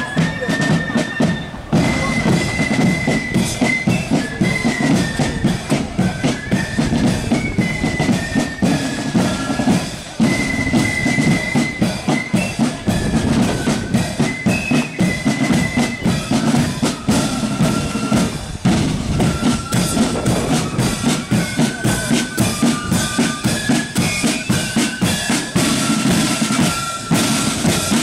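Marching flute band playing a tune: high, thin flute notes over rapid snare drumming and a steady bass drum, the drums coming to the fore near the end as the drummers pass close.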